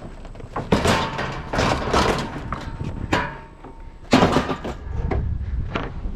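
Metal knocking and scraping in a string of separate clunks as a discarded refrigerator is handled and moved, with a faint metallic squeal in the first half.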